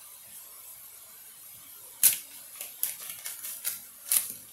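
Kitchen knife cutting through a yellow onion on a cutting board. About two seconds in begins a run of sharp, irregular knocks and crunches as the blade goes through the onion and strikes the board; the first is the loudest.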